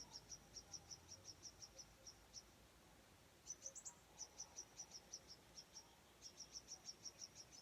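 Cricket chirping: short, high chirps in quick runs of about five a second, with a brief pause a little before halfway through.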